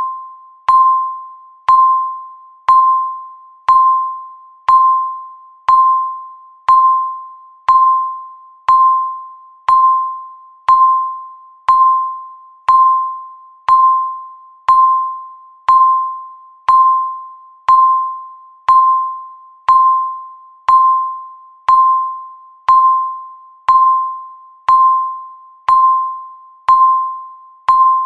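Countdown timer's tick sound: a short pinging tone with a sharp click at the start, fading quickly, repeated evenly once every second.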